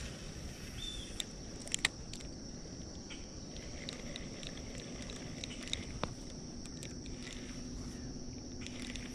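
Insects calling in a steady high-pitched drone, with a few sharp clicks and taps scattered through it, two close together near two seconds in.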